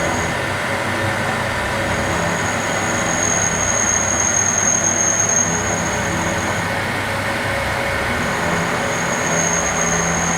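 DMG Maho CNC milling machine taking a light finish pass in 16CrMo4 steel with an indexable-insert milling cutter at 2500 rpm: steady machining noise with a high thin whine that drops out twice and comes back.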